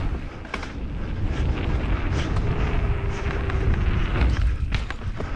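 Wind buffeting the microphone over the sound of a YT Jeffsy 27.5 mountain bike rolling fast down a dirt trail, its tyres on the dirt and the bike knocking and rattling over bumps.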